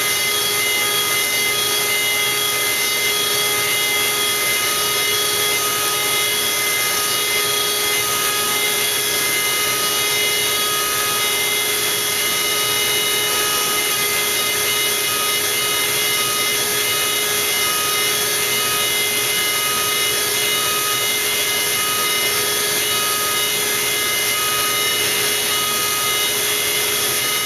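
Romaxx CNC router spindle running with an end mill cutting a circular pocket in very hard lignum vitae: a steady machine whine with several fixed tones over a constant cutting hiss.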